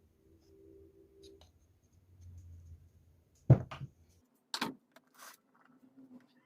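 A few sharp knocks and clicks, the loudest about three and a half seconds in, over a faint low hum.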